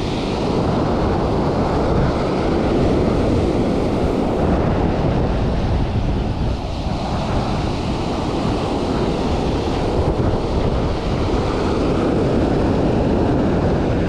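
Ocean surf breaking and washing up the sand in a steady loud rush, with wind buffeting the microphone.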